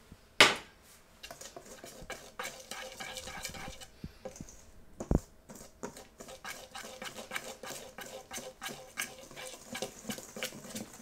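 A whisk beating flour into a thick egg-and-sugar batter in a mixing bowl: a quick, irregular run of clinks and scrapes against the bowl. A sharp knock comes about half a second in and another about five seconds in.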